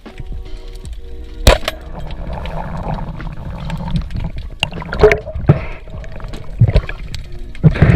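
Water sloshing, splashing and gurgling around a spearfishing diver at the surface, uneven and churning, with a sharp loud knock about one and a half seconds in.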